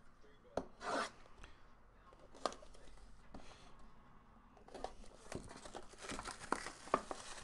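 Plastic shrink-wrap on a cardboard trading-card box being slit with a folding knife and pulled off: scattered crinkling and tearing with sharp clicks and taps of the box being handled, busier in the second half.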